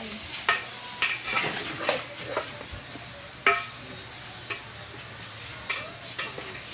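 Metal slotted spatula stirring chicken pieces in an aluminium pot, scraping and clinking against the pot at irregular intervals, about once a second.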